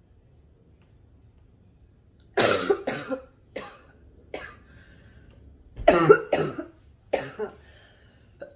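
A person coughing: after a couple of quiet seconds, a bout of two loud coughs, a few smaller single coughs, then a second bout of two loud coughs and one more small cough near the end.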